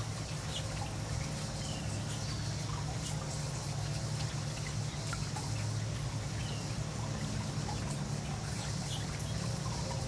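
Water trickling steadily through a shallow stony pool, over a low steady hum.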